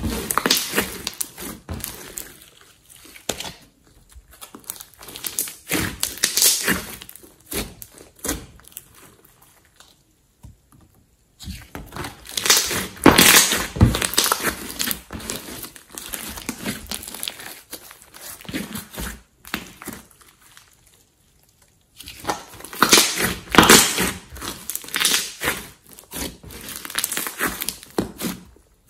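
Hands squeezing, pressing and folding a large mass of thick slime, giving wet crackling and squelching pops in four bouts with short pauses between.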